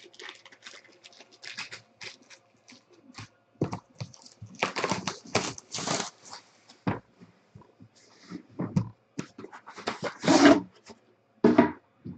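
Clear plastic shrink-wrap being torn off a sealed card box and crumpled by hand: irregular crinkling and crackling, loudest about halfway through and again near the end.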